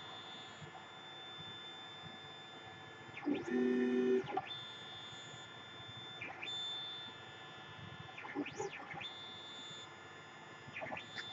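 Lulzbot TAZ 3D printer running a print: its stepper motors give a whine that changes pitch as the print head and bed move, over a steady motor and fan hum. The loudest stretch comes about three and a half seconds in, and the pitch rises and falls again near the end.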